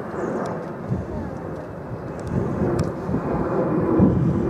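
Steam train running along the line, a steady low rumble of the working locomotive and its wheels on the track that swells near the end.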